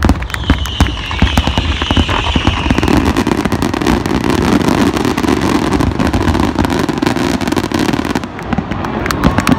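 Fireworks display: rapid, overlapping bangs and crackles of many aerial shells bursting in a dense barrage, with a high whistle falling in pitch over the first two seconds or so.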